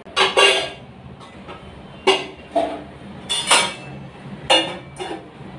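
Stainless steel cooking vessels and utensils being handled: a series of sharp metallic clinks and clanks, each with a short ring.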